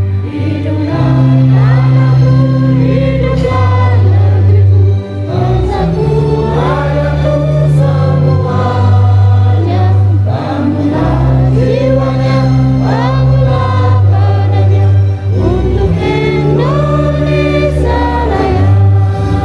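A group of people singing a song together over instrumental accompaniment, with low held bass notes that change every couple of seconds.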